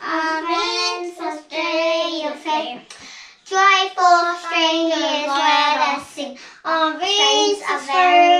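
Young child singing a song unaccompanied, in phrases with short breaks about three and six seconds in.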